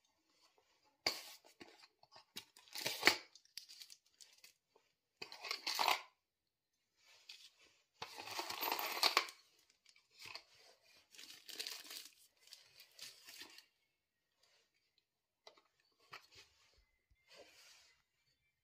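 Thin plastic packaging bag crinkling and rustling as a small security camera is unwrapped, along with cardboard packaging being handled. It comes in separate bursts, the loudest about eight to nine seconds in, followed by a few light knocks near the end.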